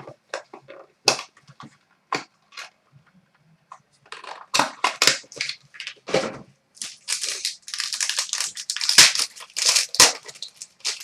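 Trading-card packaging being torn open and crumpled: a run of irregular crinkling and tearing noises, a few scattered crackles at first and then a dense stretch over the second half.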